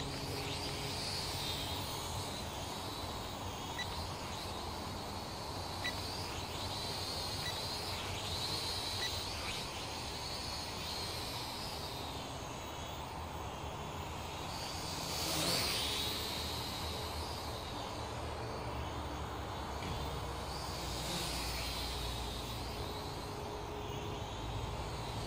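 Small Syma toy quadcopter in flight, its motors and propellers whining with a pitch that rises and falls as the throttle changes. It is loudest briefly about halfway through.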